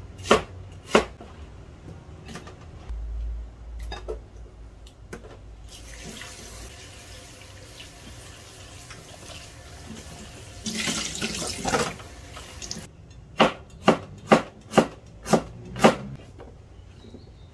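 A cleaver chops on a cutting board a few times. A kitchen tap then runs into a bowl while cut vegetable pieces are rinsed by hand, and the water cuts off. Six quick cleaver chops follow through ginger on the board.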